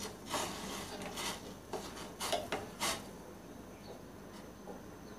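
A spoon scraping and stirring sago pearls in boiling water in a stainless-steel pot, with about six short rasping strokes in the first three seconds, then quieter.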